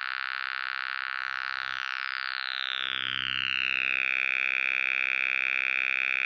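Software synthesizer holding one buzzy, sustained note while a resonant filter sweeps slowly downward, then settles and holds steady about two-thirds of the way in.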